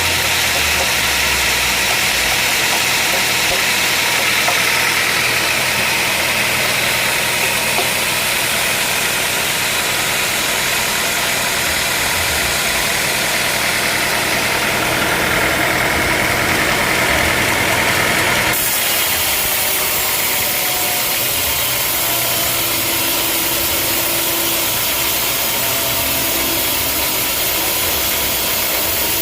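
Sawmill machinery running steadily with a continuous engine-like drone. The sound changes abruptly about eighteen seconds in and then runs on at much the same level.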